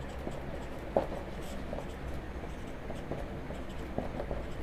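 Marker pen writing on a whiteboard: short scratchy strokes with a sharper tap about a second in, over a faint low hum.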